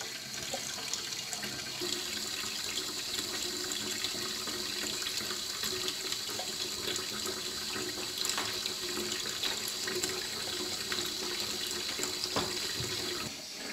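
Kitchen tap running a thin, steady stream of hot water into a small bowl in a stainless-steel sink, the water splashing in the bowl and spilling over into the sink.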